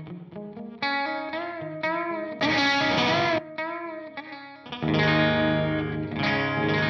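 Electric guitar, a Fender Telecaster, played through a Sonicake Sonic Ambience delay and reverb pedal. Plucked single notes with a wavering pitch, a loud strummed chord about two and a half seconds in, then ringing chords from about five seconds on.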